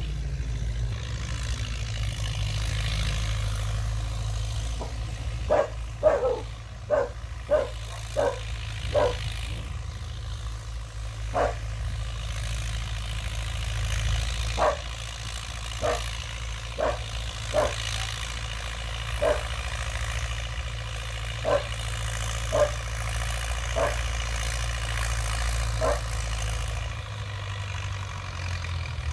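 Old Belarus MTZ tractor's diesel engine running steadily under load while tilling. A dog barks over it repeatedly from about five seconds in: a quick run of several barks, then single barks roughly a second or two apart.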